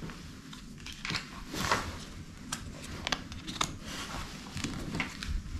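Small game blocks and cards handled on a wooden tabletop: scattered light clicks and taps at uneven intervals.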